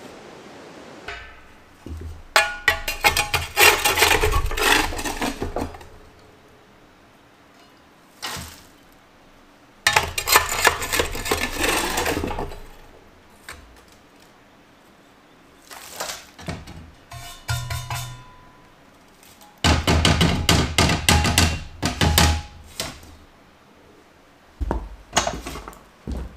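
Metal pots and utensils clattering and scraping in several bursts of a few seconds each, with a light metallic ring.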